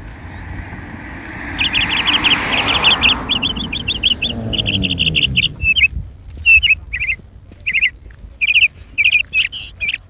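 Small birds chirping in quick runs of high repeated notes, then in short separate phrases. During the first half a vehicle passes, its sound swelling and then falling in pitch as it goes by.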